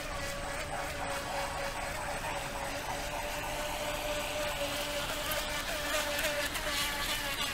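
Radio-controlled model boat's motor whining as it runs fast across the water, with a higher whine rising in pitch about halfway through.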